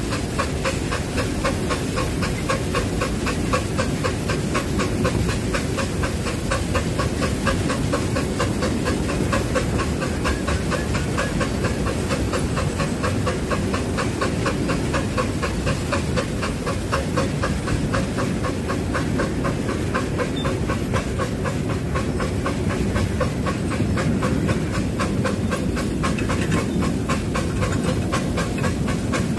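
Miniature steam locomotive working steadily as it hauls a passenger train, heard from a carriage behind it: a quick, even beat of exhaust chuffs with hissing steam, over the rumble of the carriage wheels on the track.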